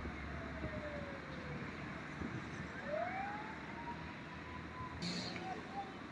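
An emergency vehicle's siren wailing, its pitch falling, then rising and holding, before it cuts off about five seconds in. Underneath runs steady road noise.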